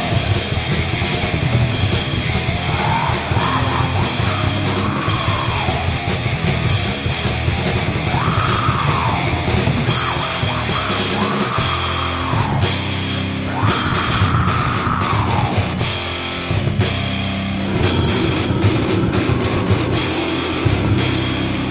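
Death metal music: fast, dense drumming under heavily distorted guitars, with a high line that swells up and falls back every couple of seconds.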